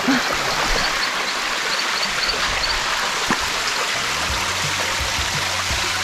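Waterfall water rushing steadily. About four seconds in, low background music begins under it.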